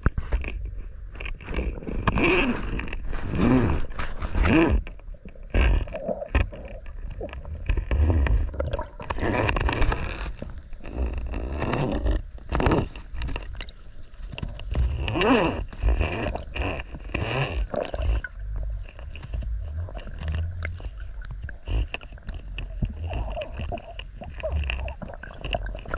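Muffled underwater sound picked up by a camera in its housing: a steady low rumble of water with scrapes and gurgles as the freediver moves, and a few short tones that bend up and down.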